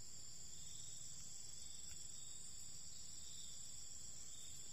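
Steady, high-pitched chorus of insects in tropical forest, an unbroken shrill drone with no pauses.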